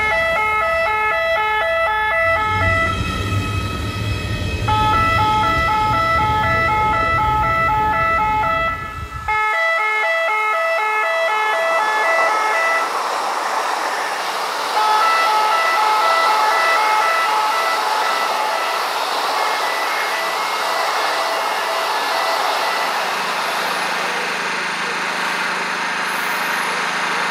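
Automatic track warning system (ATWS, Rottenwarnanlage) horns sounding a loud, pulsing multi-tone warning, the signal that tells track workers a train is approaching. Passing trains rumble and rush underneath; a heavy low rumble stops abruptly about nine seconds in.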